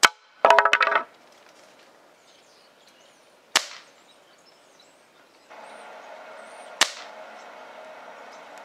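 Three sharp cracks about three seconds apart: a .177 spring-piston break-barrel air rifle firing pellets through a chronograph into putty. A brief rapid rattle follows the first crack. The rifle has a weak, worn mainspring and is shooting under 300 fps.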